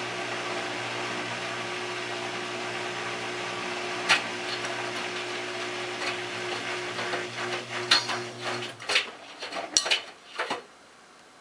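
Miele Touchtronic W3033 front-loading washer on its delicate wash: a steady motor hum as the drum turns, with the wet laundry flopping and splashing in the drum, growing louder and more frequent over the last few seconds. The motor cuts off about nine seconds in, and the drum comes to rest after a few last splashes and knocks, pausing between the gentle tumbles of the delicate cycle.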